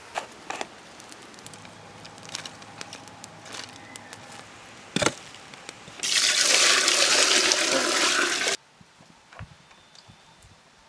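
Water poured out in a heavy stream for about two and a half seconds, starting about six seconds in and cutting off suddenly. Before it come a few scattered knocks and clicks of handling, with one sharper knock about five seconds in.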